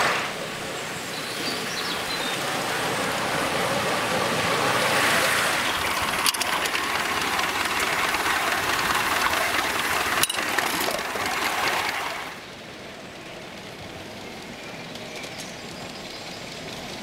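5-inch gauge live-steam model of Leek and Manifold Valley Light Railway engine No. 2 'J. B. Earle' running with its passenger train, a steady rushing noise with two sharp clicks about four seconds apart. About twelve seconds in the sound falls suddenly quieter, with the train farther off.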